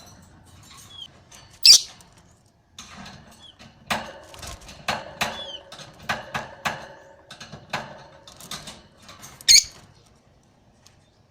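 Lovebird chattering in a run of short, quick chirps, with two sharp shrill calls standing out, one about two seconds in and one near the end.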